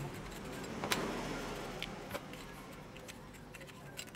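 Open-end wrench clicking against the small hex nut of a drill's toggle switch as the nut is turned: a few sharp, scattered metal ticks over a low steady background.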